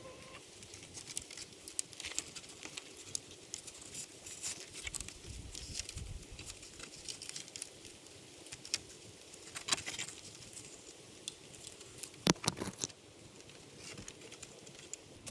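Irregular light clicks, taps and knocks, with a sharper knock about twelve seconds in.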